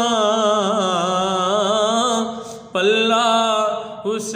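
A man singing a Punjabi devotional kalam (a manqabat for Hussain), drawing out long, wavering notes. The phrase breaks off briefly a little past halfway, then a new phrase begins.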